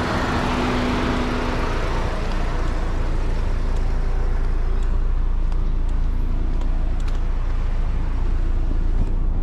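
Steady low vehicle rumble.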